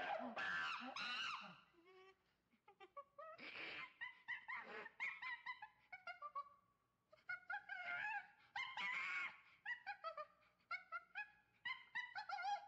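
Chimpanzees calling: bouts of short, high, pitched calls. The loudest, longer calls come about a second in, around four seconds in and around eight to nine seconds in, and a quick run of short calls follows towards the end.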